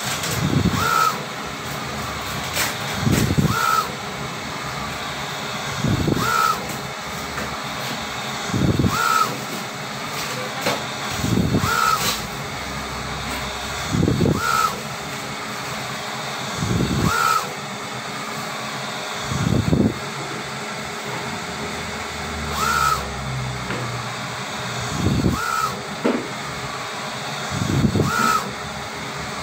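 UV flatbed printer's print-head carriage shuttling back and forth across the bed while printing on acrylic, a whirring pass about every two and a half to three seconds, each with a short motor whine, over a steady machine hum.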